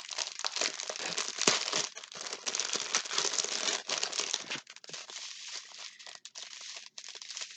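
Small plastic baggies of diamond-painting drills crinkling as they are handled, busiest for the first four seconds or so and lighter after.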